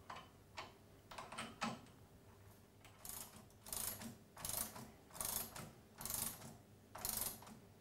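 Ratchet spanner tightening the top nut on a shock absorber's piston rod: about six short ratcheting strokes a little under a second apart, after a few light clicks as the nut is fitted by hand.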